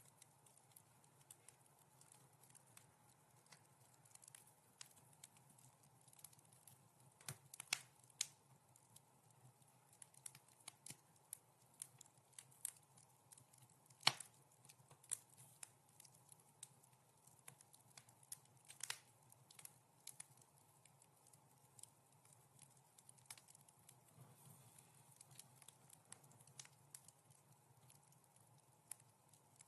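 Wood fire crackling softly in a fireplace: scattered, irregular small snaps and pops, with a few sharper ones about 8, 14 and 19 seconds in, over a faint steady hum.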